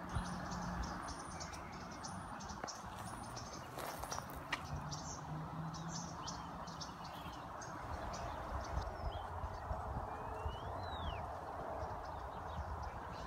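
Outdoor ambience: birds chirping now and then over a steady background hiss, with one rising-then-falling bird call near the end.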